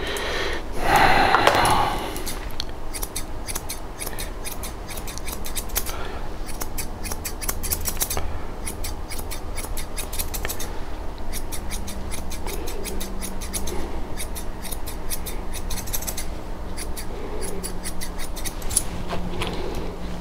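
Grooming shears snipping a bichon frise's coat in quick runs of clicks, in clusters with short pauses between them. About a second in, a brief louder sound stands out above the snipping.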